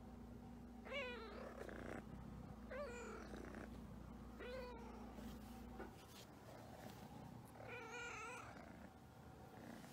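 Havana Brown cat meowing four times, each a short call that rises and falls in pitch.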